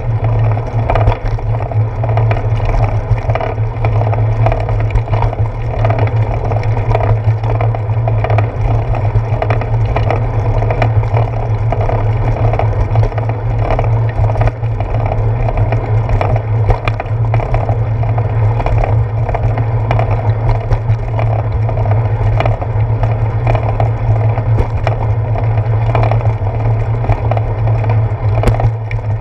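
Bicycle rolling over a concrete path, heard through a handlebar-mounted GoPro: a steady low rumble from the tyres and vibration, with frequent small rattles and knocks over bumps and joints.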